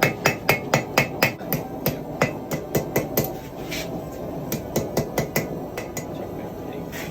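Blacksmith's hammer striking hot metal on an anvil, flattening and smoothing the piece: quick, even blows about four a second, which thin out to scattered strikes after about three seconds.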